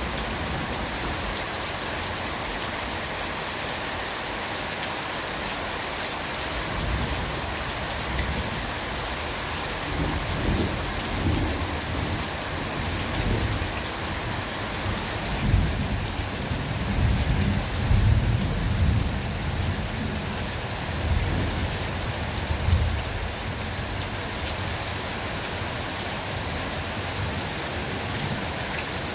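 Steady rain. Low, rolling thunder comes in about a quarter of the way through, is loudest a little past halfway, and dies away before the end.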